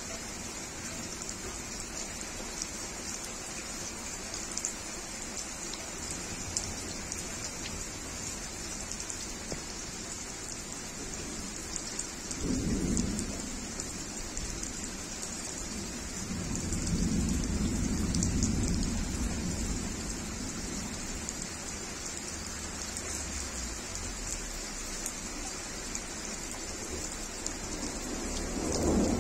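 Rain falling steadily on a garden, pattering on leaves, on a plant pot brimming with water and on puddled paving stones. Thunder rumbles twice, a short roll about twelve seconds in and a longer one from about sixteen to twenty seconds, and another rumble starts near the end.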